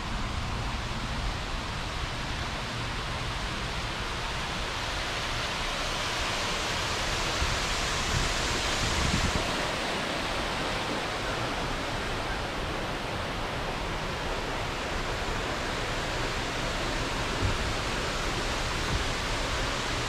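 Water spilling over the edge of a fountain pool: a steady rush that swells for a few seconds near the middle, with a few soft low thumps.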